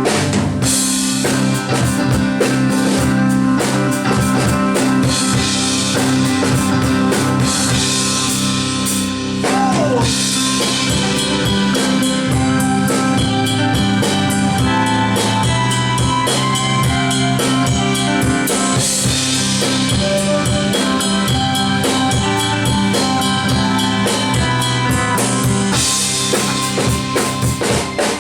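Live rock band playing an instrumental passage: a drum kit keeps the beat on bass drum and snare under sustained guitar and keyboard chords, with no singing.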